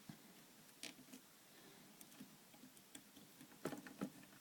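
Faint, scattered clicks and ticks of a screwdriver turning the small cooler screws into a graphics card, with a few sharper clicks near the end.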